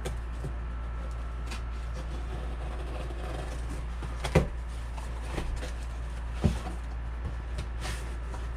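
Parts packaging being handled and unpacked, with two sharp knocks, about four and six and a half seconds in, and a few lighter clicks over a steady low hum.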